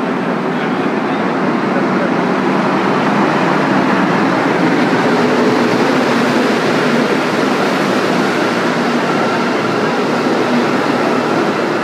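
Santiago Metro Line 1 train on rubber tyres pulling into an underground platform: a steady, loud rushing rumble as the cars slide past close by, with a faint steady tone coming in during the second half as the train slows.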